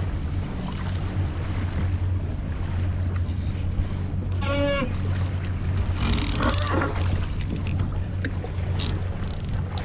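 Boat's engine running steadily at low speed, a constant low hum. A brief higher-pitched sound comes about halfway through, and a short burst of noise follows a second or so later.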